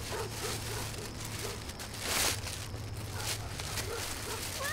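A steady low hum with faint small rustles and one short breathy rustle about two seconds in; right at the end a cat starts to meow.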